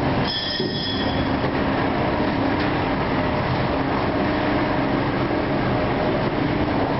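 Overhead bridge crane running along its rails with a load on the hook: a loud, steady rumble of travel wheels and drive motors, with a brief high-pitched squeal about half a second in.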